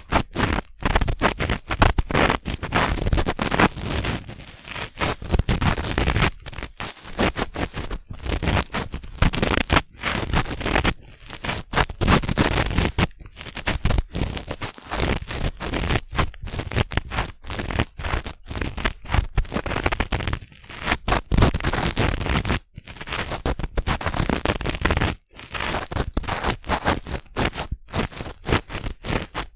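Cotton swabs scratching and rubbing inside a binaural microphone's ear, close and loud, in quick irregular strokes broken by short pauses.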